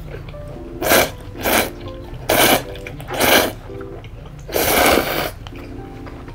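Noodles being slurped from a bowl: five quick slurps, the last one longest, over background music.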